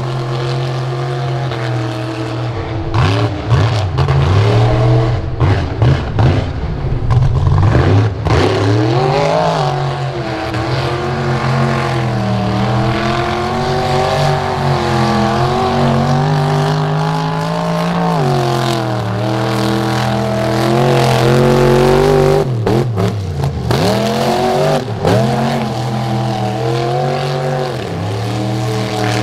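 Mega truck's engine running hard as it churns through deep mud, the revs rising and falling with the throttle. The sound is choppy and loudest about three to eight seconds in, and the revs drop sharply and climb back about twenty-two seconds in.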